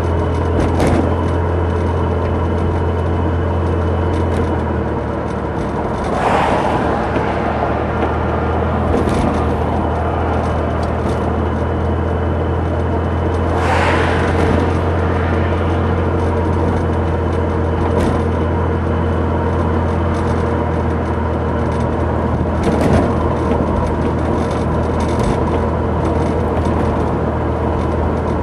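Road noise inside a moving hatchback or SUV: a steady low drone from engine and tyres, with several brief knocks and rattles from the body as it goes over bumpy road.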